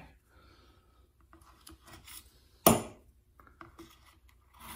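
Needle-nose pliers scraping and clicking inside a plastic chainsaw oil tank while a rubber oil line is pulled through its filler neck. Nearly three seconds in there is one sharp knock, the loudest sound.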